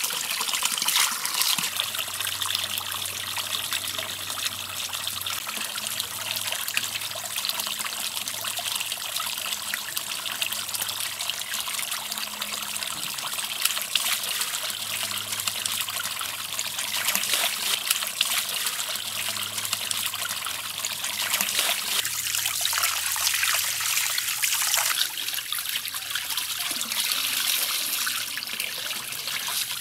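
A steady stream of water from a hose pipe splashing into an overflowing aluminium pot, with whole fish being rinsed by hand under the stream.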